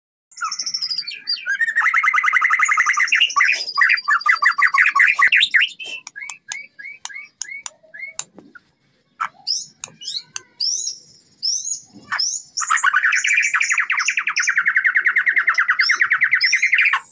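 Young white-rumped shama of the Kota Agung strain, about six months old, in full song. It opens with a long, fast, rattling trill, moves into a run of short separate whistled notes, and then gives another long rattling trill near the end.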